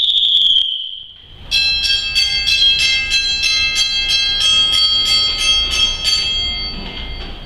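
A shrill whistle held for a moment and cut off within the first second, then after a short pause a hand bell rung rapidly and evenly, about four strokes a second, for some five seconds before fading: train sounds imitating a steam train's whistle and bell.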